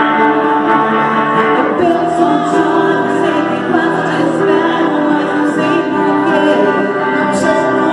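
Live band playing a song: a woman sings lead over electric guitar and keyboard, with men's backing voices.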